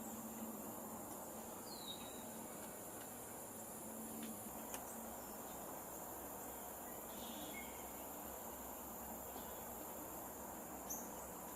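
Faint outdoor ambience: a steady high-pitched insect trill, with a few short bird chirps and an occasional single faint knock.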